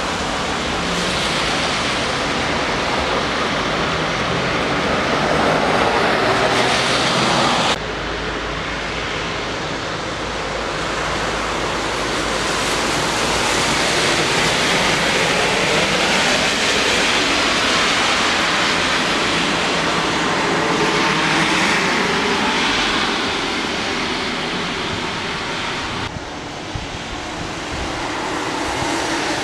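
Street traffic on wet asphalt: vehicle engines and a steady hiss of tyres on the wet road as an ambulance and other vehicles drive past. The sound changes abruptly about a quarter of the way in and again near the end.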